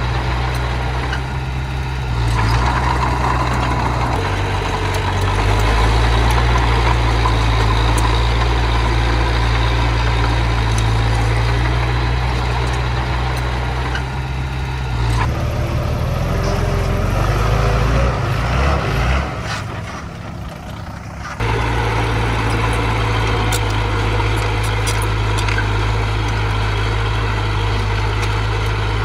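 Diesel engine of earthmoving machinery running steadily under work, its low note shifting as the load changes a little past halfway. It dips quieter for a couple of seconds, then comes back suddenly at full level.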